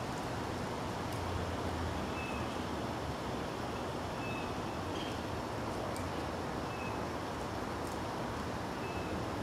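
Steady outdoor background noise with a low hum in the first two seconds, and a faint, short, high chirp repeating every second or two.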